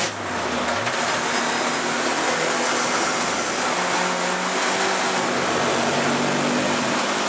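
Alfa Romeo 155 Turbo race car heard from inside its cabin at racing speed: the engine running under load beneath heavy wind and road noise. About a second in, the engine note dips and then climbs again.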